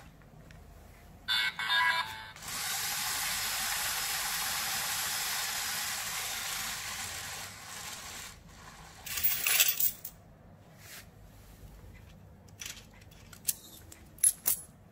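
LEGO Mindstorms EV3 slot machine running a spin. A short pitched beeping comes about a second in, then a steady hissing whir for about five seconds while the large motor turns the reels. A bright clattering burst follows about nine seconds in, then a few scattered clicks.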